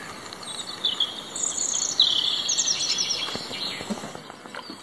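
Dawn chorus: several songbirds singing at once, overlapping rapid trills and chirping phrases, loudest about two seconds in.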